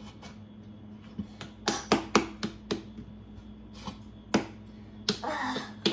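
Irregular sharp taps and knocks, about eight of them, as a chocolate container is tapped and knocked to get stuck chocolate out of it.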